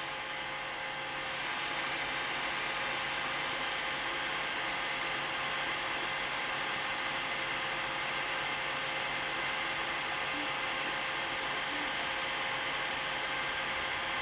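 A small machine running with a steady whir and a few faint constant tones.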